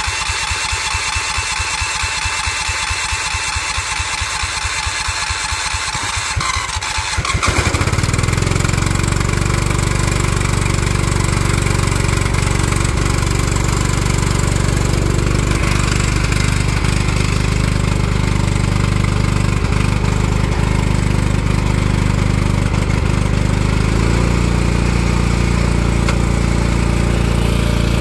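Lawn tractor engine cranked over by its starter, hot-wired after the key did nothing, with a rapid steady pulsing. It catches about seven seconds in and settles into a steady run, its note shifting slightly a few seconds before the end.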